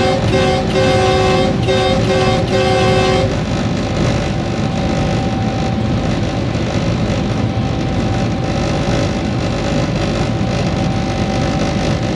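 Diesel-electric locomotive horn sounding in short blasts, heard from inside the cab, stopping about three seconds in. After that comes the steady running noise of the locomotive and train at speed.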